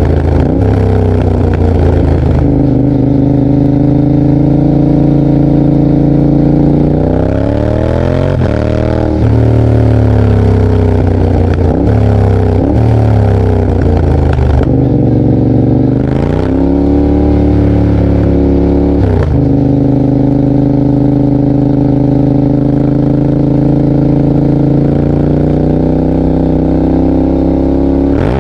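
Motorcycle engine running at road speed, its note sinking and climbing again several times as the throttle is rolled off and reopened through gear changes.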